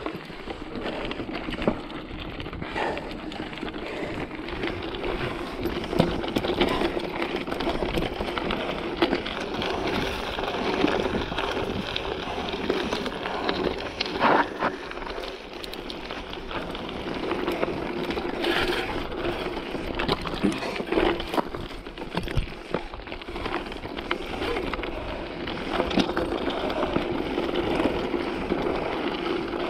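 Mountain bike riding over rough dirt singletrack: tyres rolling and crunching on loose dirt and stones, with frequent rattling clicks and knocks from the bike over the bumps.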